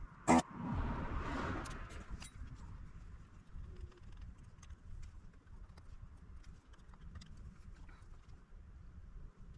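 Bench handling noises during an electronics repair: a sharp click right at the start, a brief hiss lasting about a second, then scattered light ticks and taps.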